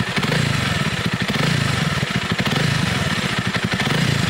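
Honda CRF300 motorcycle's single-cylinder four-stroke engine idling at a steady speed, its exhaust beating in rapid, even pulses.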